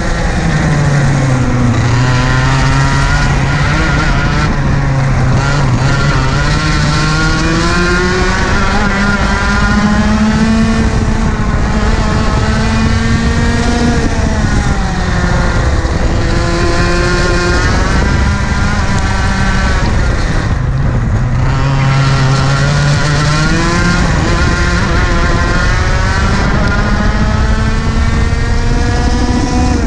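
IAME KA100 two-stroke kart engine at racing speed, heard from on board. Its pitch climbs steadily down each straight and drops sharply as the driver lifts for corners, several times over.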